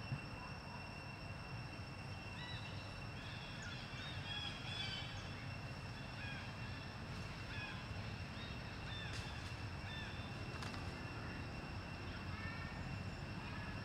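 Outdoor ambience with short, arching chirp calls repeating every second or so from about two seconds in, over a steady high-pitched whine and a low rumble. A single sharp click right at the start.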